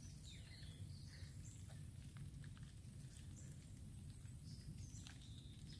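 Quiet outdoor ambience: a low steady rumble with a few faint, short high chirps scattered through it.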